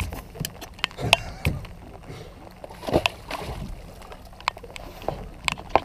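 Water splashing and sloshing at the side of a boat as a striped bass is let go over the gunwale, with scattered sharp clicks and knocks throughout.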